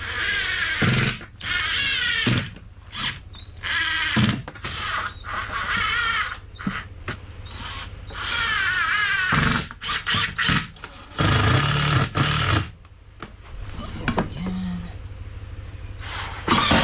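Power drill driving screws into the lumber of a wooden gate frame. It comes in several bursts of whining, each about a second long, with short knocks in between.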